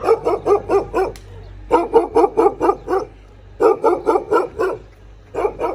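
Dog barking in quick runs of about five barks a second, four runs with short pauses between them.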